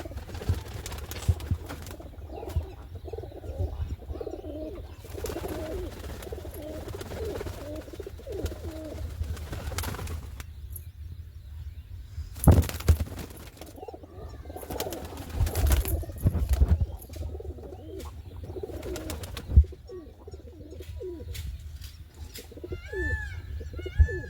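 Pigeons cooing repeatedly, with a few sharp wing-flapping claps in between. Near the end come short, high chirping calls.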